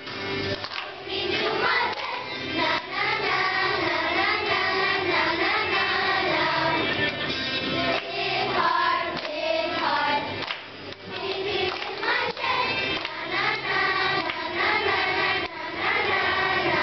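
Third-grade children's choir singing a song together.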